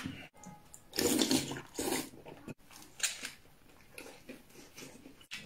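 Close-up eating sounds: a man biting into and chewing a rolled flatbread wrap, in several short rasping bursts.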